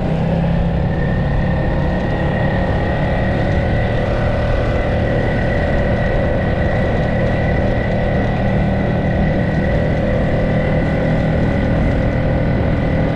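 Honda 5 HP single-cylinder four-stroke outboard motor running under way at a steady throttle: an even drone with a steady high whine over it.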